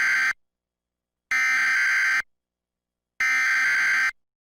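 Emergency Alert System SAME header: bursts of digital data tones that encode the coming emergency alert. The end of one burst is heard, then two more, each about a second long with about a second of silence between them.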